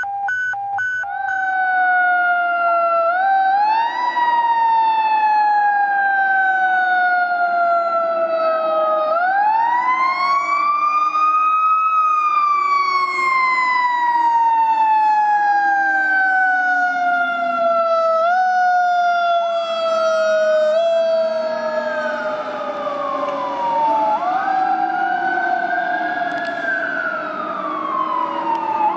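Fire engine siren wailing: it is spun up in pitch and then left to coast down in long, slow falling glides, with short bumps back up, typical of a Federal Q2B mechanical siren. From about twenty seconds in, a second siren wails alongside it, rising and falling across the first.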